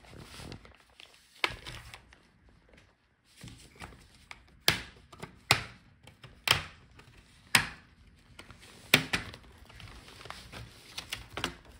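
Retaining clips of an Asus ROG Zephyrus G16 laptop's bottom case snapping loose one by one as a plastic pry tool works around the edge. About six sharp clicks, with faint scraping and handling sounds between them.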